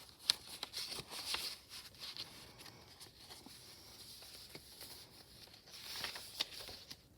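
Paper rustling with light taps as the pages, envelope and cards of a handmade nature journal are handled, in short bursts that are busiest in the first second or so and again around six seconds in.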